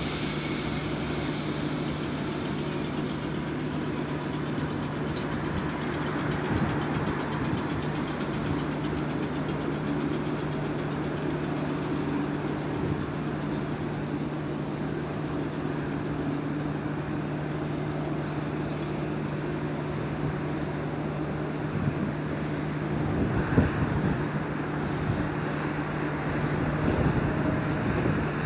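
Electric multiple-unit train giving a steady low electrical hum over an even rumble. A few sharp knocks come about three-quarters of the way through.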